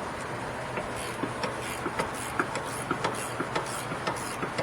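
Hand wrench on a Loctite-coated 15 mm brake caliper bolt being worked loose, giving sharp, irregular metallic clicks a few times a second over a steady background hum.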